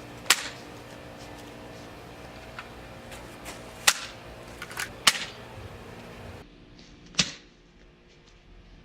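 BB gun firing at a watermelon: about four sharp shots, several seconds apart.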